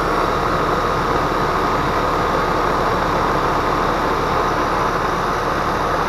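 Outdoor air-conditioner condensing unit running, its compressor and condenser fan making a steady, even noise.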